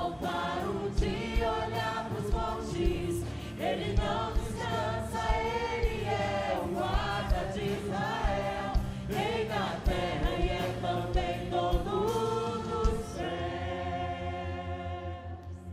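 A choir singing a gospel worship song with band accompaniment, drums keeping a regular beat under the voices. About thirteen seconds in, the voices settle into a long held chord and the music gets quieter.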